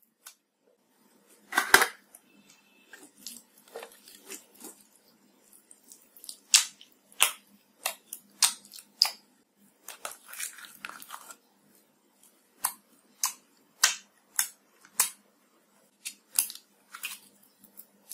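Slime being pressed, poured and squeezed by hand: an irregular run of short, sharp pops and clicks as the slime is squashed and pulled apart, the loudest about two seconds in.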